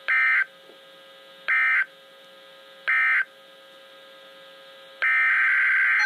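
Emergency Alert System digital data bursts from a Midland NOAA weather radio's speaker: three short, harsh, warbling bursts about a second and a half apart, the end-of-message code after the blizzard warning. About five seconds in, a longer burst begins, the header of a second alert following straight on.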